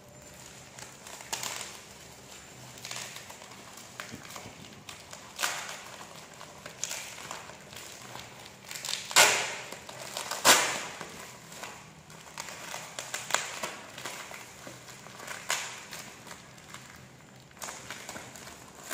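Brown packing tape and plastic wrapping crinkling and rustling as a taped package is unwrapped by hand, with two louder crackles about a second and a half apart near the middle.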